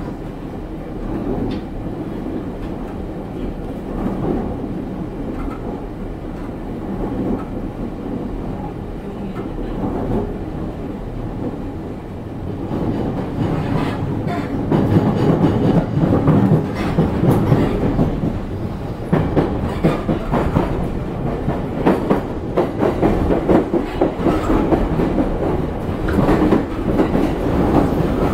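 Cabin noise of a JR East E231-series commuter train running on the line: a steady low rumble of wheels on rail that grows louder about halfway through, with rapid clickety-clack of the wheels over rail joints.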